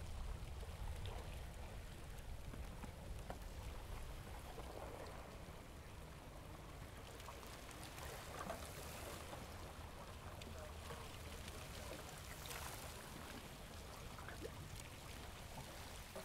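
Faint, steady water ambience: water lapping and trickling among shore ice, with scattered small ticks over a low rumble.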